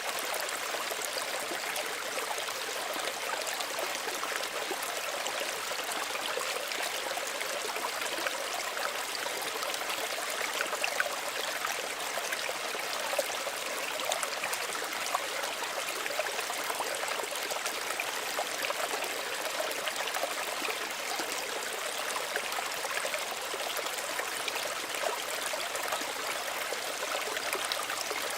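Small stream running and trickling steadily, a constant light rush of water with small splashes and ticks over it.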